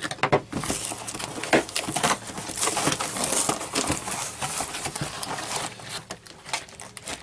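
Parcel packaging crinkling and rustling with many irregular small clicks as it is handled and opened.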